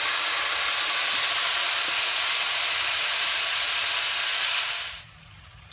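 Cooked pinto beans and their juice sizzling as they are spooned into a smoking-hot cast iron pan of bacon fat: a loud, steady hiss that cuts off suddenly about five seconds in.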